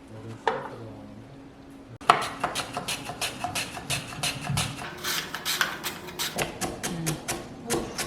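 Knife chopping on a cutting board: one knock, then from about two seconds in a rapid, steady run of chops.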